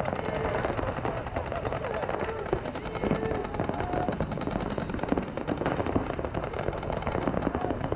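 Many paintball markers firing rapid strings of shots at once during a tournament point, a dense, continuous crackle of shots.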